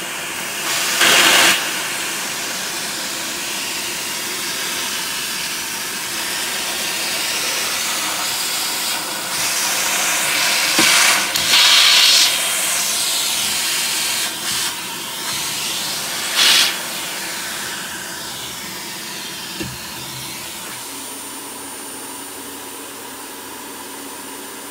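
Vacuum cleaner running with a steady hiss of rushing air, surging louder for a moment about a second in, twice around eleven to twelve seconds in, and again near sixteen seconds.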